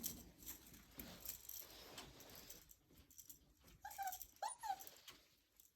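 Six-week-old Welsh Terrier puppies whimpering, two or three short high whines about four seconds in, amid faint scattered clicks and rustles.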